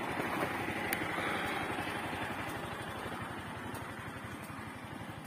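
Honda CG 160 Fan's single-cylinder engine idling with a fast, even beat, slowly growing fainter.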